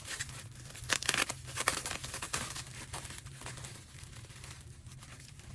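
Packaging crinkling and rustling as it is handled, a quick run of crackles over the first few seconds that thins out to fainter rustles.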